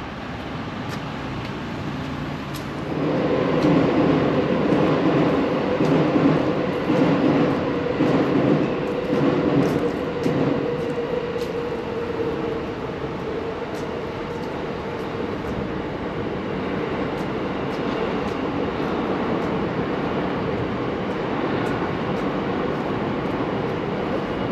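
Rumble of a large vehicle passing nearby, with a steady hum, swells about three seconds in and slowly fades over the following ten seconds, leaving continuous traffic noise.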